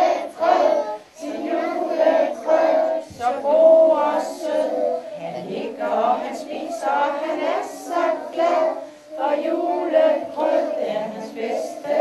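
A group of young children singing a Danish Christmas song together.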